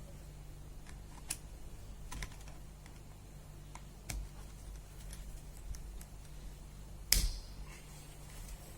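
Irregular light clicks and taps of small hand work, roughly one every second, with one sharper, louder click about seven seconds in, over a faint low hum.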